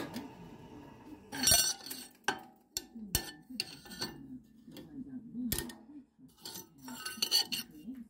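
Drilled steel plates clinking and clattering as they are handled and shifted on a drill press's metal table: a run of irregular, sharp metallic knocks, the loudest about a second and a half in.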